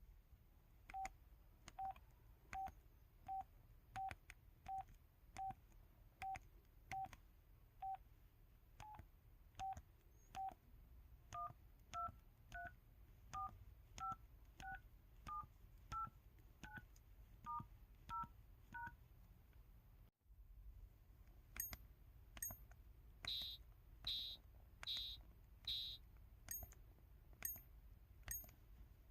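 KTF-TR2000 mobile phone's default keypad tones: short beeps with a key click, about one to two a second. The first dozen are on one pitch, then the beeps step between higher and lower pitches key by key. About twenty seconds in, the tones give way to the phone's 'Drum Set 1' button sounds, short clicks and percussive hits.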